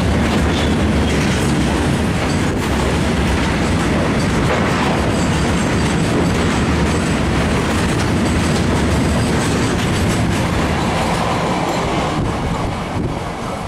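Express train running past at speed: the loud, steady noise of wheels on rails with clickety-clack, fading a little near the end as it goes by.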